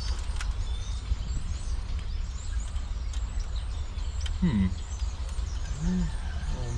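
Steady low outdoor rumble with faint birds chirping, light clicks of a wiring harness being handled on a diesel engine, and two short low voice-like sounds in the second half.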